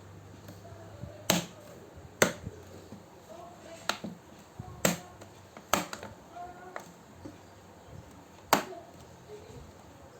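Plastic bottom casing of an Asus A456U laptop being pressed back onto the chassis, its clips snapping into place with about six sharp clicks at irregular intervals.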